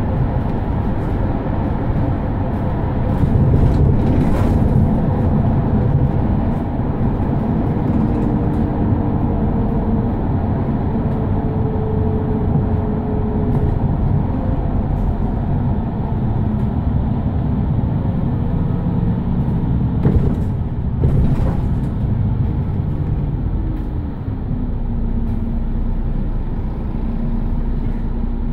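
Mercedes-Benz Citaro city bus driving, heard from inside: a steady engine and road rumble with a faint whine that shifts in pitch. Near the end the whine drops and settles to a steady lower tone as the bus slows to a stop and idles.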